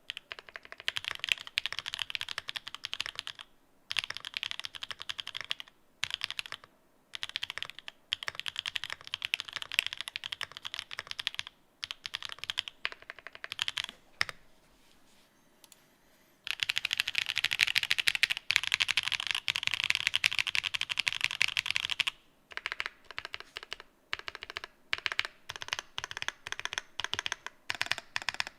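Pure Berry linear switches typed on The New Eighty keyboard with cherry-profile keycaps, in bursts of fast key strokes with short pauses. There is a quiet gap of about two seconds near the middle, then a longer, denser run of typing.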